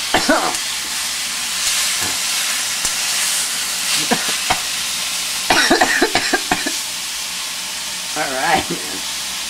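Thin-sliced steak sizzling steadily in a frying pan while it is pushed around by hand, with a few small clicks from the pan. A few short wordless vocal sounds rise over the sizzle.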